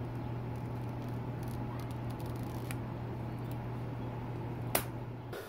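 Plasti Dip being peeled from the edge of the console trim, with faint crackles and ticks over a steady low hum. A sharp click comes near the end, and the hum cuts off just after it.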